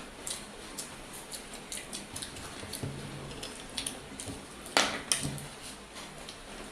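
Eating sounds from people hurriedly eating egg rolls: chewing and small clicks and ticks of food and plates being handled, with one louder burst of noise just before five seconds in.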